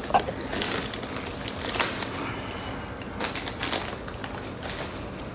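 Crunchy potato chips being chewed: a few scattered sharp crunches and crackles.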